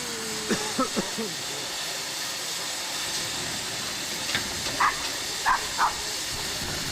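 Steam hissing steadily from an Erie Type A steam shovel, with a few short voice-like sounds over it.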